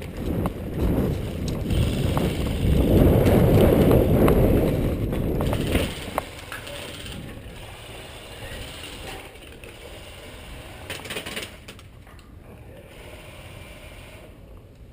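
Rustling and rattling of a player's gear and clothing as they rush forward, loudest for about the first six seconds. It then drops to a quieter rattle with a few scattered clicks.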